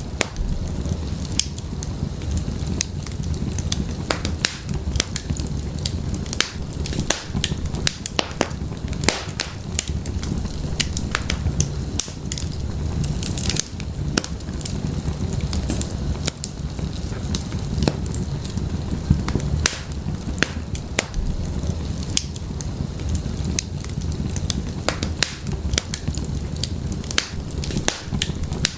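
Wood fire burning in an open fireplace: a steady low rumble of flames with frequent sharp, irregular crackles and pops from the burning firewood.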